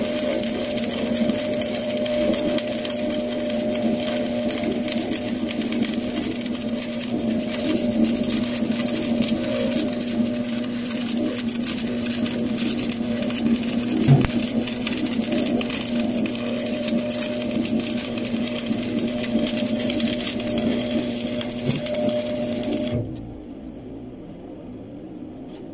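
Stick (arc) welding on a steel pipe-to-elbow joint: the arc's steady crackle and hiss over a low hum, cutting off suddenly about 23 seconds in when the arc is broken.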